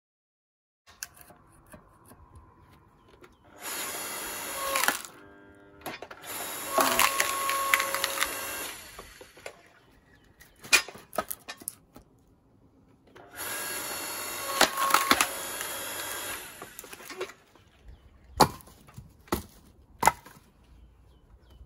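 Electric log splitter running in two bouts of several seconds each, pushing logs through its wedge with the wood cracking and splintering. Between and after the bouts come several sharp knocks of wood.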